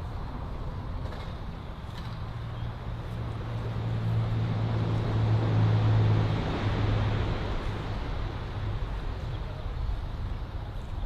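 A low engine hum that swells for a few seconds and then fades, as of a motor passing, over a steady rushing background.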